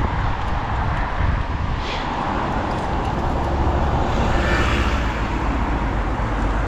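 Road traffic noise outdoors, with a swell about two-thirds of the way through like a car going by, over a low wind rumble on the microphone from riding a bicycle.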